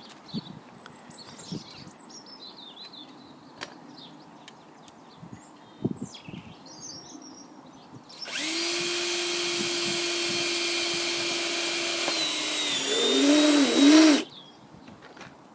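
A power drill starts about eight seconds in and runs steadily while making a hole in the tyre. Near the end it slows and wavers under load, then stops.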